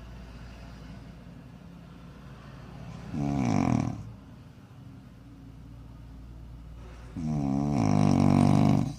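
Loud snoring: a shorter snore about three seconds in and a longer, louder one near the end, with a steady low hum underneath.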